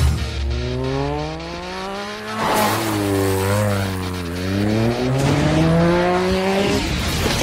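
Sport motorcycle engine revving hard, its pitch climbing in long rising runs through the gears, with a short drop about four seconds in before it climbs again.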